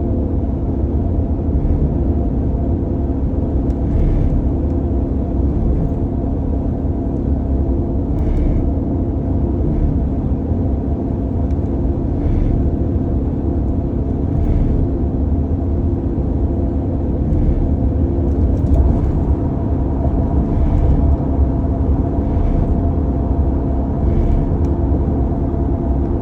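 2015 Ford F-150 running with a steady low rumble, with faint short noises coming back every couple of seconds: the intermittent grinding the owner is trying to trace.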